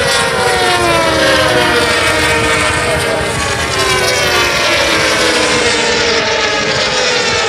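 Several racing superbike engines running at high revs as the bikes pass along the track, their pitch falling slowly as they go by.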